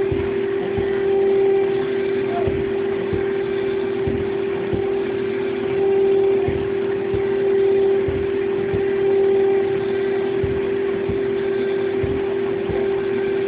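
PCB milling machine's spindle running with a steady drone as its cutter clears copper from a copper-clad board during rubout, with faint low knocks under it.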